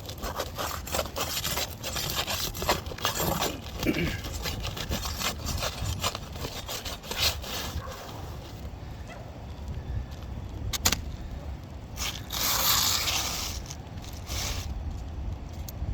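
Irregular scraping and rubbing with scattered clicks and one sharp knock, from hands or tools working on a material, over a steady low rumble.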